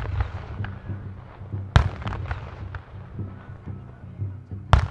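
Fireworks at fairly close range: the crackle of a ground-level burst of stars dying away, then two loud sharp bangs, about two and five seconds in, each followed by a scatter of smaller pops.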